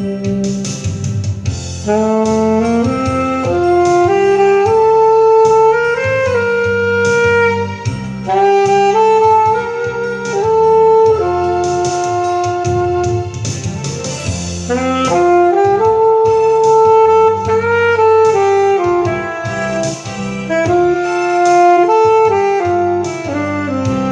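Saxophone playing a slow melody of long held notes, some sliding into the next, over a steady low sustained accompaniment.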